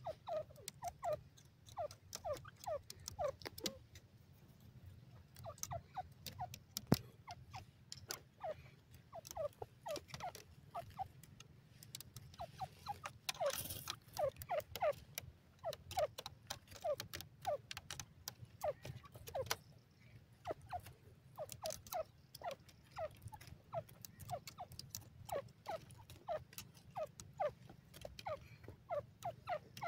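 Grey francolin giving soft, short falling clucks, many in loose runs, mixed with faint clicks from pecking at dry soil.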